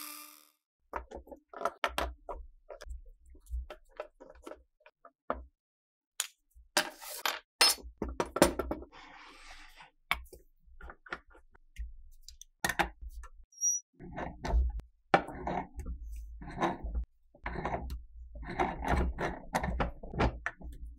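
Irregular knocks, taps and clanks of metal parts being handled and struck, with short quiet gaps. They grow busier over the last several seconds, where a hammer strikes a pipe wrench gripping a threaded projectile clamped in a bench vise.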